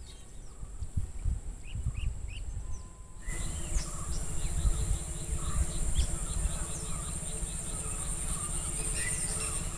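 Outdoor ambience of small birds chirping over a low rumble. About three seconds in it gets louder: a steady high insect drone sets in, and a bird repeats a short note about four or five times a second among other chirps.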